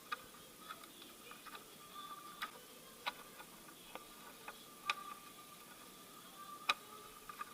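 Scattered light clicks and taps at irregular intervals, from a plastic timing belt cover being handled and fitted onto the engine.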